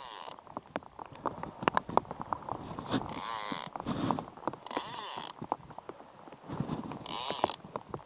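Click-and-pawl fly reel buzzing in four short runs of about half a second each, with scattered clicks between, as line comes off or goes back onto the spool.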